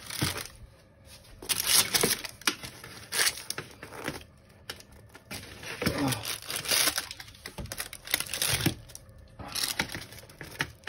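Kitchen scissors snipping through a freshly baked pizza's crisp crust and the baking paper under it, in irregular crunchy cuts with crinkling of the paper.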